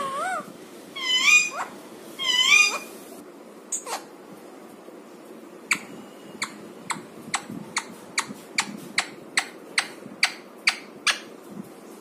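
Parakeet giving two loud, wavering squawks in the first few seconds, then a steady run of about a dozen sharp clicks, roughly two a second, as a lame parakeet walks across the floor tiles, its claws and beak tapping the tiles while it leans on its beak for support.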